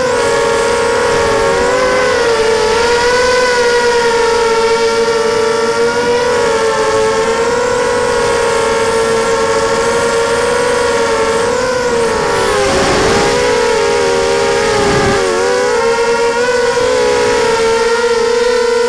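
Brushless motors and propellers of a 230-size FPV racing quadcopter whining as it flies, heard from the onboard camera. Several close pitches rise and fall together with throttle, and about two-thirds of the way through the pitch dips under a noisy rush before climbing again.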